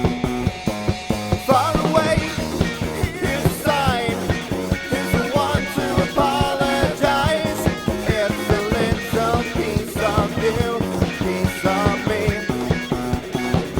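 Rock music with a steady drum beat, electric guitars and a singing voice that comes in about a second and a half in.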